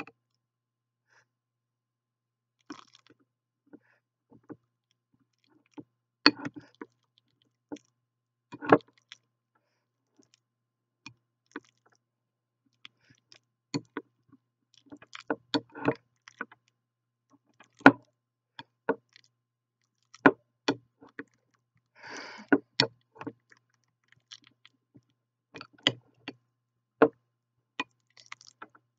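Metal wire potato masher mashing avocado in a glass bowl: irregular sharp knocks and clinks as it strikes the bowl, with a brief scrape about two-thirds of the way through.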